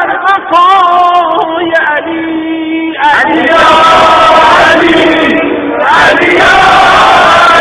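Lead male voice chanting a Shia devotional zikr, a wavering sung line; about three seconds in, a crowd of voices joins in a dense group chant.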